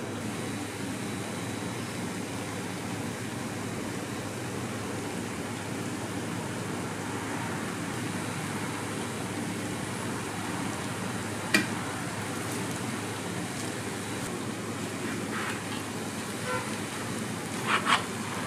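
Crepe batter and melting butter sizzling on a hot round crepe griddle, a steady hiss. A sharp click comes about eleven and a half seconds in, and a couple of short knocks come near the end.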